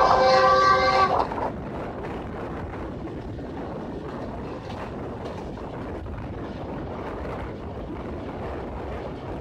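The train's horn sounding a steady several-note blast that cuts off about a second in, followed by the steady running noise of the passenger coach rolling along the track.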